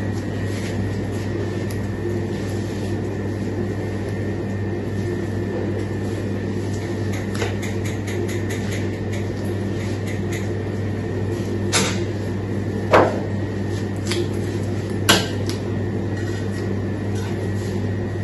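Steady low hum of workshop equipment with a thin high whine over it, and a few sharp clicks and knocks of a metal spatula against the metal turntable a little past the middle, three of them louder.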